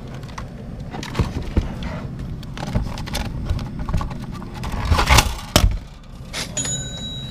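Handling a vending machine's bill validator cash box: irregular plastic clicks and knocks as the cassette is worked, and the rustle of a thick stack of paper bills being pulled out, loudest about five seconds in.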